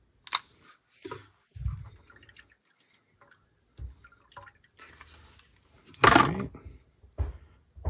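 Scattered small clicks, taps and low bumps of hand work on fishing line and heat-shrink tubing, with one louder, noisier burst about six seconds in.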